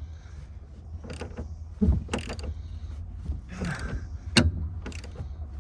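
Hand tools working stubborn bolts on a pickup bed: scattered metallic clicks, knocks and creaks, sharpest about two seconds in and again past four seconds, over a low steady rumble.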